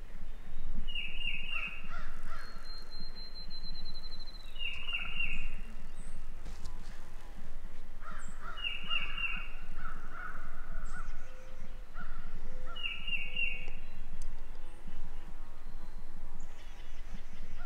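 Wild turkey gobbler gobbling four times, each gobble a quick run of rattling notes, a few seconds apart.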